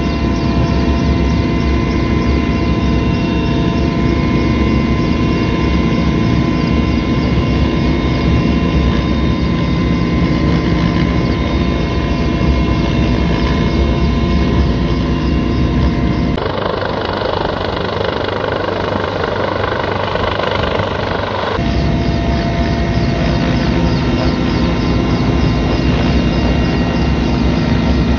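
Helicopter in flight, heard from inside the cabin: a steady engine and rotor drone with a strong low thrum and several steady whining tones. For about five seconds past the middle the low thrum drops out and a rushing noise takes over, then the drone returns.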